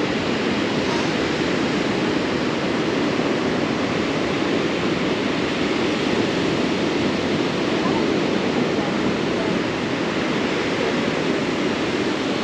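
Ocean surf breaking and washing steadily onto a sandy beach, a continuous even rush, with wind.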